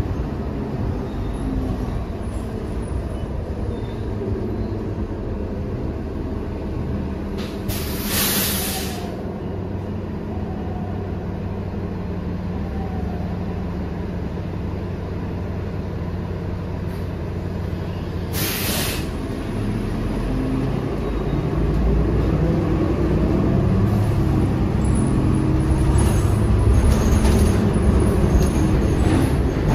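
Cabin sound of a 2017 New Flyer XDE60 articulated diesel-electric hybrid bus: a steady drone from its Cummins ISL9 diesel and drivetrain, broken by two short hisses of compressed air about eight and eighteen seconds in. From about twenty seconds in the drive grows louder, with a rising whine as the bus gathers speed.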